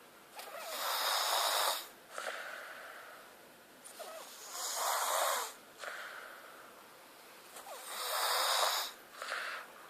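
Steady, rhythmic snoring in about three breath cycles, each a loud, airy, hissy snore followed by a softer breath.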